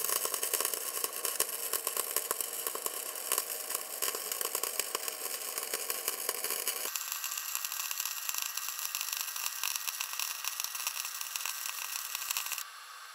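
Flux-cored wire MIG welding arc from a Hitbox SYN-MIG200Pro inverter welder on thick steel: a steady crackling hiss. It sounds thinner about halfway through and stops shortly before the end, leaving a faint hiss.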